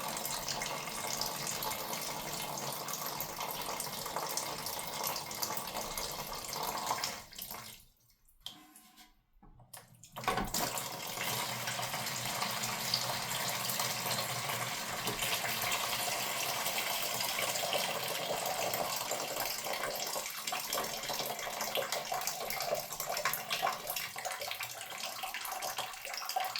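Leftover water from a toilet tank pouring out through the fill-valve hole in the tank bottom into a bucket, a steady splashing stream. It breaks off for about two seconds a little past a quarter of the way in, then carries on.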